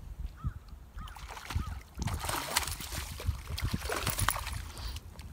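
Hooked peacock bass thrashing and splashing at the water's surface, in bursts about two seconds in and again near four seconds, over a steady low rumble.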